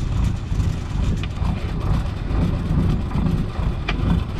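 Fishing boat's engine running with a steady low rumble. A couple of sharp clicks come about a second in and again near the end.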